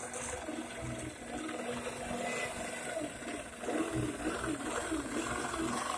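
APQS Millennium longarm quilting machine stitching, its motor hum rising and falling in pitch as it speeds up and slows down with the head's movement, and getting louder about three and a half seconds in.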